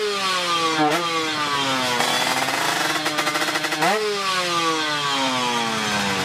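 Drag-bike Kawasaki Ninja 150 two-stroke single-cylinder engine being revved with three quick throttle blips, the revs sinking slowly back down after each.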